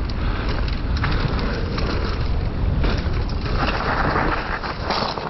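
Mountain bike ride heard from a bike-mounted camera: wind buffeting the microphone over the rolling noise of knobbly tyres on a dirt trail, turning hissier near the end.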